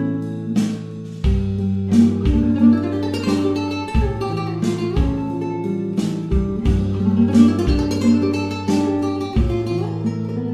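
Background music: plucked acoustic guitar playing a steady run of notes over a low bass line.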